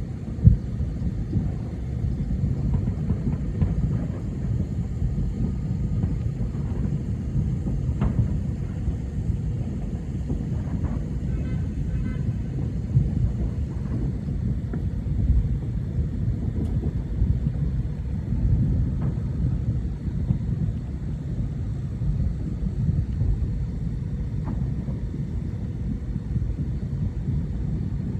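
Countless distant fireworks merging into one continuous low rolling rumble, like far-off thunder. A sharper bang stands out just after the start, and a few faint pops and crackles come through now and then.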